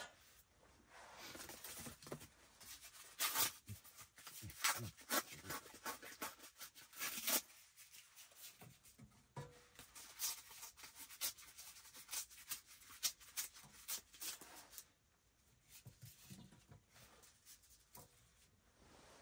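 Dry kindling being handled and laid into a small wood stove's firebox: a dense run of short scrapes, rustles and light cracks of thin sticks, thinning out to a few faint ones near the end.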